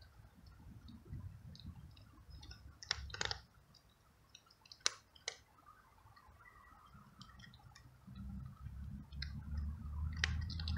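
A cat chewing dry kibble, with sharp crunching clicks coming in small clusters as the pellets break. A low rumble builds over the last few seconds.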